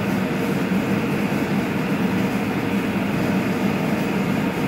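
Steady hum and drone of a pipe-bending machine's motor running, holding an even, unchanging pitch.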